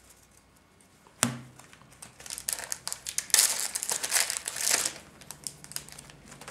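Foil booster-pack wrapper crinkling and crumpling in the hands as a new trading-card pack is opened, densest for about three seconds in the middle, after a single sharp knock about a second in.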